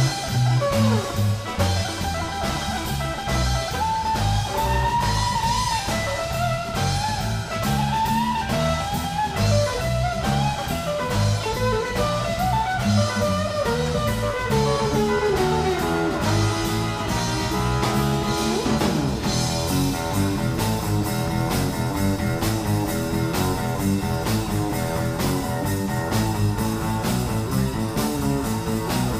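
Live blues band playing: a guitar lead line with bending notes over bass and drums, turning to denser repeated chords about two-thirds of the way through.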